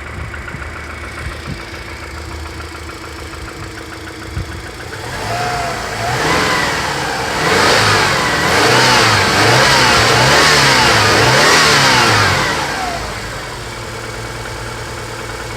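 Subaru Impreza's flat-four boxer engine, just after a major overhaul, idling with a knock, then revved up and down several times in a row before settling back to idle. The knock is not heard while the engine is given throttle.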